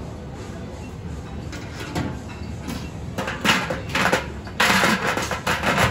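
Domed stainless steel lid of a bánh cuốn steamer pot being set on and shifted, giving a run of metal clanks and scrapes in the second half.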